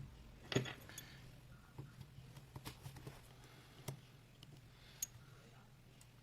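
Scattered light clicks and taps of small repair tools working on an opened iPhone 6s, about a dozen in all, the loudest about half a second in, over a faint low hum.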